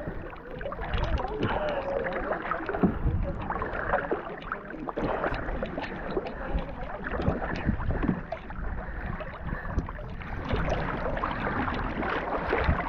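Kayak paddle blades dipping and splashing in the water in irregular strokes, with water lapping against the hull of a sit-on-top kayak.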